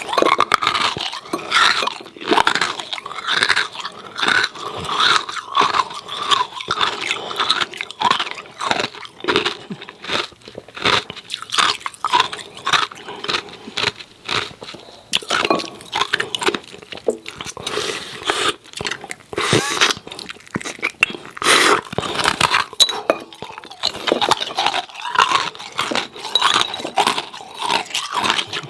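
Close-miked chewing of hard, frosty ice cubes: dense, irregular crunching and cracking as the ice is bitten and ground between the teeth.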